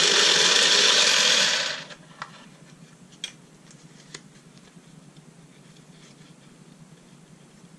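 Automatic playing card shuffler running, its motor and rollers sending cards from two stacks into the middle tray with a steady mechanical whir that stops about two seconds in. Then a few light clicks as the shuffled cards are lifted out of the tray.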